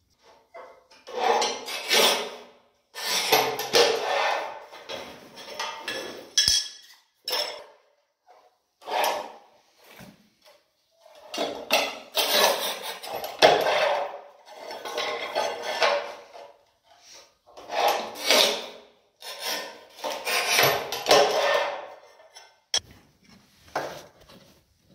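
Manual rail tile cutter's scoring wheel drawn across glazed ceramic wall tiles, a scratchy rasp repeated in strokes of one to two seconds, with sharp clicks and clinks between them as the tiles are snapped and handled.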